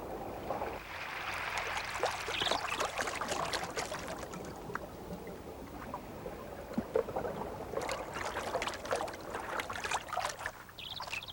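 A dog swimming: water splashing and sloshing, with many small irregular splashes.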